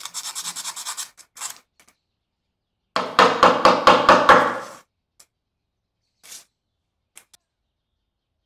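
Sandpaper rubbing in quick strokes over the rusty metal of an antique gas lighter, stopping about a second in. About two seconds later comes the loudest sound, a quick run of about seven sharp knocks, followed by a few faint small clicks.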